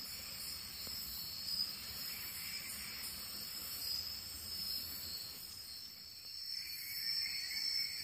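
Night chorus of crickets and other insects: a steady, high-pitched trilling. A lower trill joins about six and a half seconds in.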